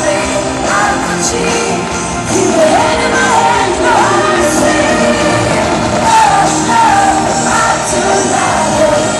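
Live pop-rock band with a female lead vocalist singing through the PA, holding long, gliding notes over electric guitar, drums and keyboards.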